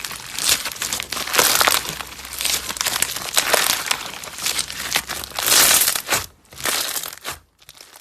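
Slime being squeezed and pressed by hand, giving a dense run of small crinkly crackles and pops; the loudest stretch comes about two-thirds through, and the sound dies away near the end.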